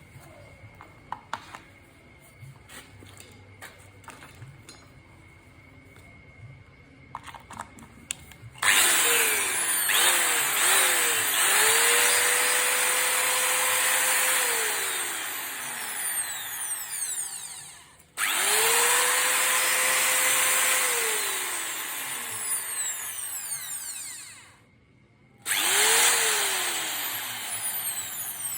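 Light clicks of handling, then an electric grinder switched on three times: each time the motor runs up to speed, holds a steady whine with a hiss, and is switched off and spins down with falling pitch, the last run short. Its motor makes the rough running noise called 'ngorok' (snoring), the sign of a faulty grinder.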